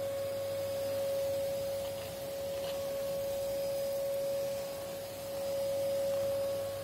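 Vacuum cleaner running: a steady, high motor whine over a hiss of rushing air, the level dipping slightly twice.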